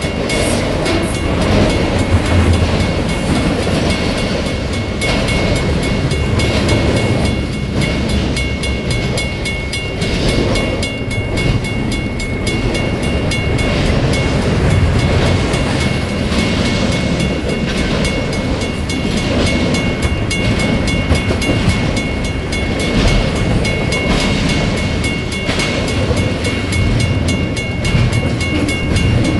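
Autorack and double-stack container freight cars rolling past: a steady rumble of steel wheels on rail, with quick, regular clicking as the wheels cross rail joints.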